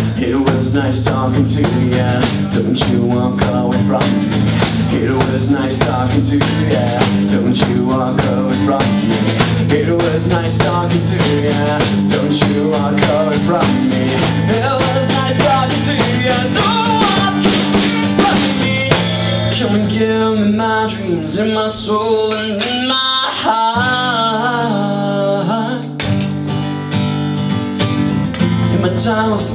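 Live song: strummed acoustic guitar with drums and a male voice singing. About two-thirds of the way in the drums drop out, leaving the guitar and a wavering sung line.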